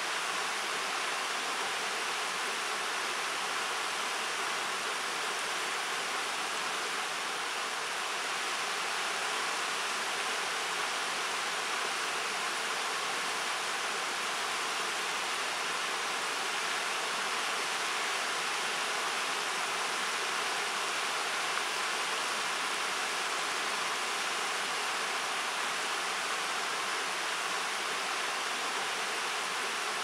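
Shallow river water running fast over rocks and cobbles in a riffle, a steady, even rush with no change.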